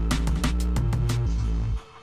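Electronic background music with a heavy bass line and a steady drum beat; the bass and beat drop out near the end.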